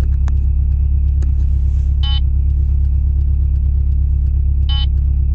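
Steady low rumble inside a car's cabin as it sits or creeps in traffic. Two short beeps sound about two and a half seconds apart, and a couple of faint clicks come early on.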